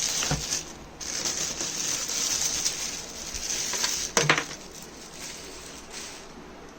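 Plastic packaging rustling and crinkling as a keyboard is unwrapped, with a single knock about four seconds in, after which the rustling is fainter.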